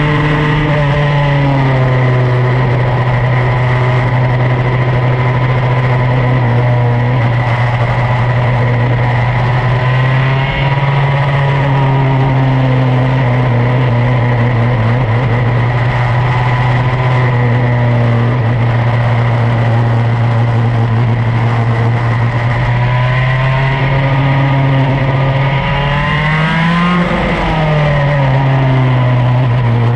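Superkart's two-stroke racing engine at speed, heard onboard, its note mostly held level. The pitch wavers briefly about ten seconds in, then climbs and falls back near the end, over a steady rush of wind and road noise.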